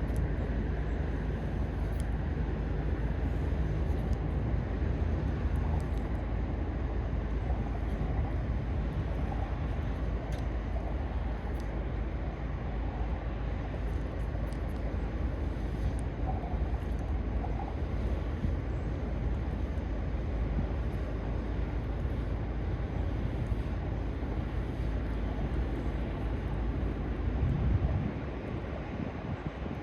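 Wind buffeting the microphone outdoors: a steady low rumble that eases near the end.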